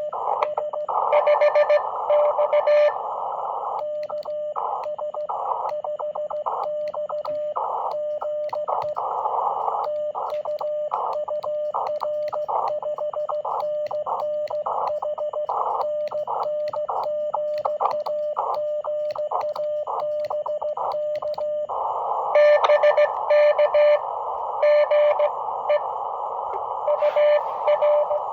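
Morse code from a low-power ham radio transceiver: a steady tone of about 600 Hz keyed on and off in dots and dashes over the hiss of narrow-filtered band noise. Louder choppy bursts come in near the start and again near the end.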